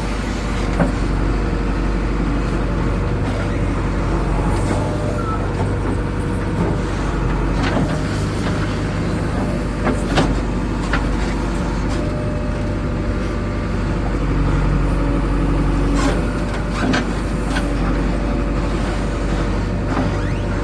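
JCB 3DX backhoe loader's diesel engine running steadily at work, with a few sharp knocks along the way.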